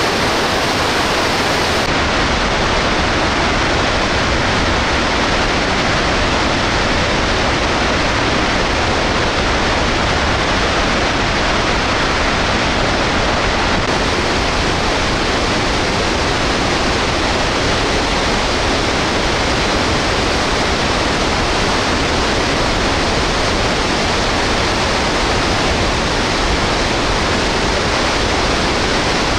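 Snoqualmie Falls in flood, a steady, loud rush of water pouring over the falls and churning in the river below, with the river near major flood stage. The hiss shifts slightly in tone a couple of seconds in and again about halfway through.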